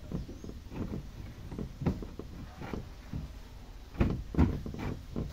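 Knocks, clicks and scrapes of hands and a homemade tool working a car fuel pump's retaining ring into place, with a cluster of louder knocks about four seconds in.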